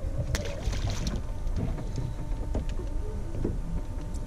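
Wind buffeting the microphone on an open boat at sea, a steady low rumble, with water moving around the hull. A few short, sharp sounds come about half a second in.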